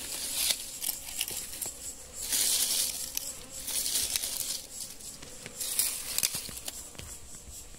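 Bees buzzing around their nest in a rock crevice as it is smoked out, with hissy rustling and scattered sharp clicks.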